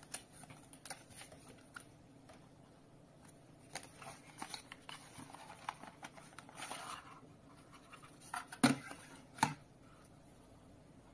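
Hands handling packaging: scattered crinkles, taps and rustles of plastic bag and cardboard box, with a longer rustle partway through and two louder knocks a little under a second apart near the end.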